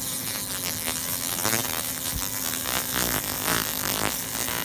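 60 W fiber laser engraving into a painted steel sledgehammer head, its scanner buzzing over a steady low hum.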